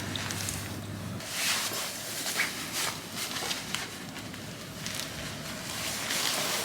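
Strong blizzard wind blowing in gusts, swelling and easing several times.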